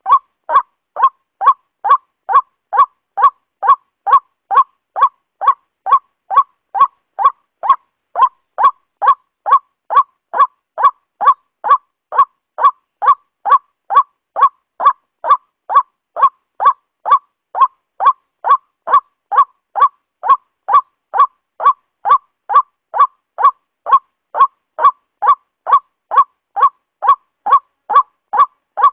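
Waterhen call, one short call repeated over and over at an even pace, about two calls a second, every call alike as in a looped recording.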